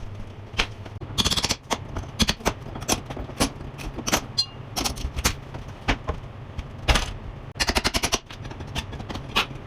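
Plaster-and-lath wall demolition: irregular sharp knocks and cracks, with two short bursts of rapid rattling strokes, one about a second in and one near the end.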